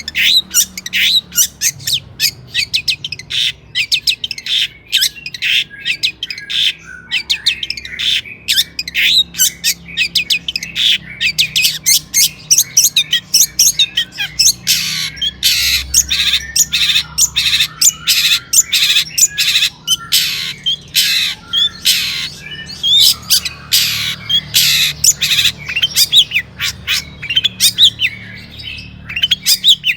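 Long-tailed shrike singing without pause: a fast, dense stream of harsh, scratchy chirps and squawks, several a second, with a faint low hum underneath.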